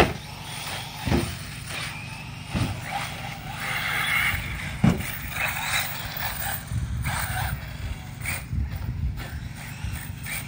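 Radio-controlled off-road buggies racing on a dirt track, their motors running at speed. Several sharp knocks come through it, the loudest about five seconds in.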